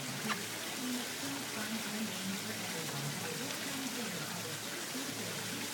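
Steady rain falling on a concrete walk and gravel, an even hiss.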